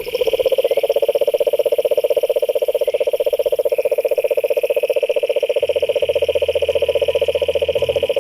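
A frog or toad giving one long, loud trill: a fast, even train of low pulses with no break.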